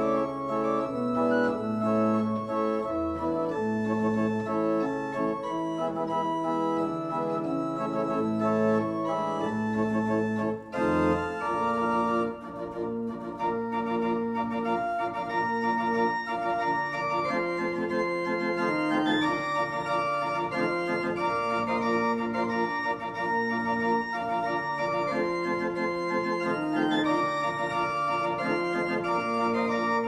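A tiny single-manual chapel pipe organ playing held chords with moving melodic lines. The sound drops out briefly about eleven seconds in, then the playing carries on.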